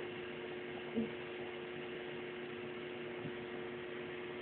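Steady electrical hum with a faint hiss from the ultrasound machine, with one short faint sound about a second in.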